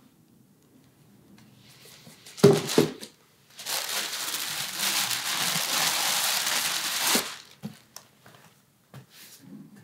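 Tissue paper rustling and crinkling for about three and a half seconds as a boot is unwrapped from it, after a short knock about two and a half seconds in; a few faint taps near the end.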